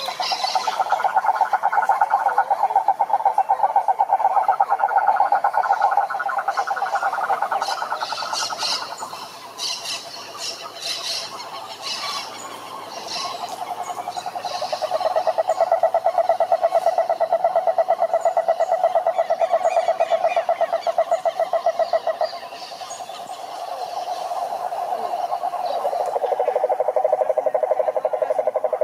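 Frogs calling in long, fast-pulsed trills, several overlapping at slightly different pitches. A spell of short, high clicking calls comes near the middle.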